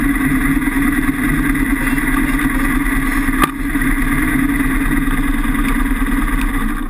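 Kawasaki KLR650's single-cylinder engine running steadily under the rider while riding a dirt trail, with one sharp click about three and a half seconds in.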